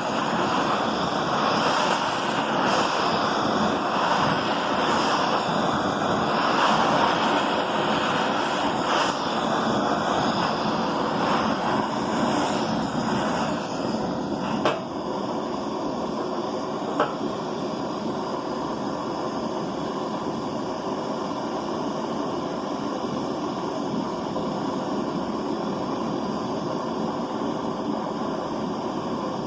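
Handheld butane torch flame hissing steadily while it heats an aluminium bar that is not yet hot enough to melt the filler rod; a little louder in the first half, with two short clicks about halfway through.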